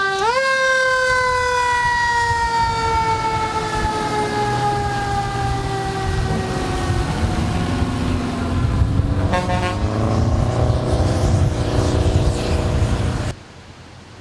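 Fire engine's siren rising briefly, then winding slowly down in pitch over several seconds. Its horn sounds in a quick run of blasts about nine seconds in, over the low rumble of the truck's engine. Near the end the sound drops away abruptly.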